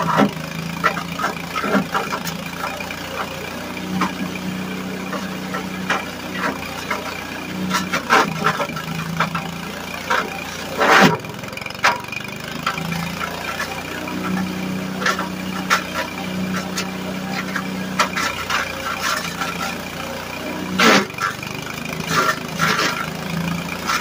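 Small single-cylinder engine of a drum wood chipper, running on wood gas, holding a steady speed while its drum cracks and splinters branches fed into the chute. Sharp cracks come throughout, the loudest about eleven seconds in and again near the end.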